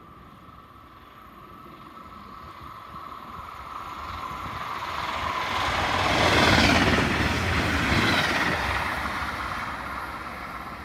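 A train passing by: its rushing rail noise builds over several seconds to a loud peak just past the middle, peaks again briefly about a second and a half later, then fades.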